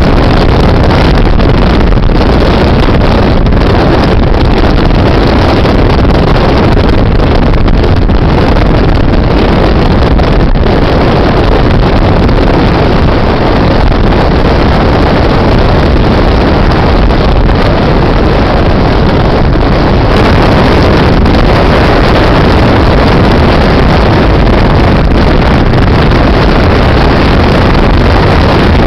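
Loud, steady rush of wind and road noise from a car driving at speed, with wind buffeting the microphone.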